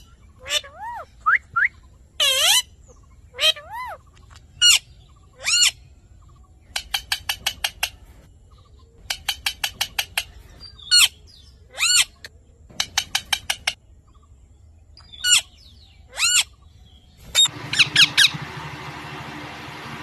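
Pet parrot calling: short shrill squawks and rising calls, broken by several quick runs of rapid chirps. Near the end a steady background noise comes in under the calls.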